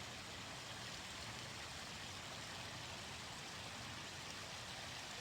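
Steady, even hiss of background noise with no distinct calls or pitched sounds.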